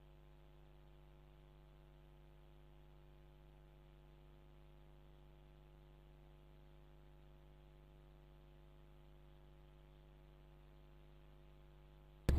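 Faint steady electrical hum, a low buzz with evenly spaced overtones and no other sound.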